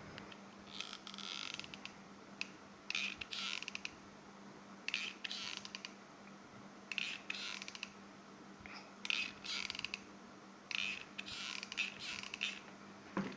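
Hot glue gun trigger squeezed again and again, its stick-feed mechanism creaking and clicking in short bursts about every two seconds as it pushes the glue stick through.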